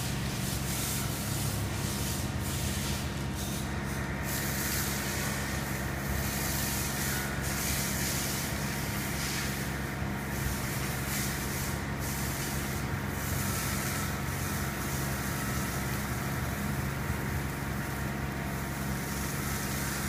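Pressure washer running, a steady motor hum under the hiss of its high-pressure water jet spraying the top of a column. The hiss thins and returns several times as the jet moves.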